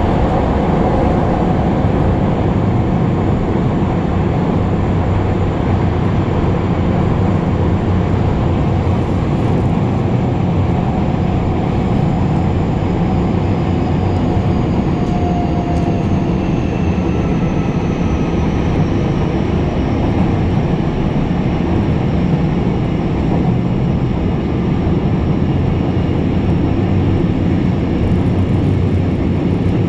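Kobe Municipal Subway 6000 series electric train running at speed through a tunnel, heard from inside the car as a steady, loud rumble of wheels on rail. A faint whine slowly falls in pitch through the second half.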